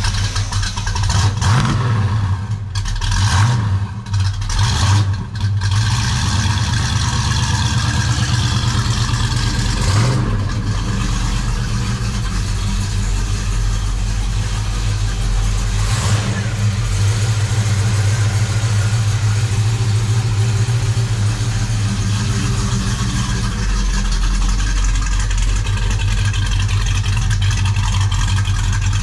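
Oldsmobile 350 V8, breathing through long-tube headers into 2.5-inch Pypes Street Pro mufflers, running just after being started. For about the first six seconds it surges unevenly with throttle blips, then it settles into a steady idle.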